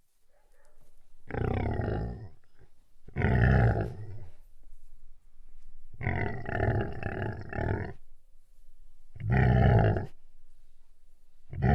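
A series of deep, loud animal-like roars and grunts, five bursts of one to two seconds each; the middle one is longer and pulses about four times a second.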